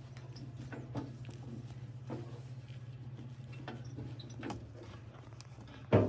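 Cloth rubbing and scrubbing on a tractor's sheet-metal bonnet as it is wiped down, with light knocks about once a second and a louder knock near the end. A steady low hum runs underneath.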